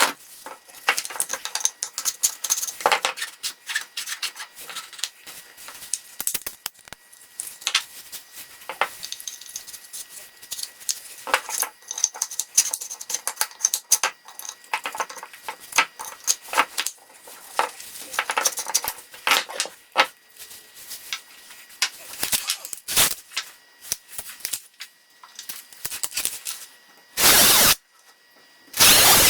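Workshop handling noises: irregular clicks, taps and scraping as tools and wooden parts are worked by hand. Near the end come two short, loud bursts of noise.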